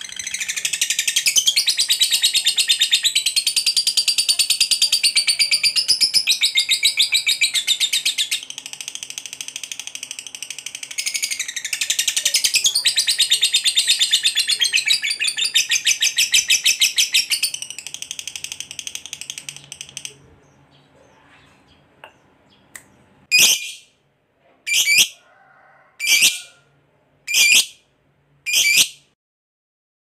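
Fischer's lovebird giving a long ngekek, a fast unbroken chattering trill that wavers up and down in pitch for about twenty seconds. Near the end come five short, sharp calls about a second and a half apart.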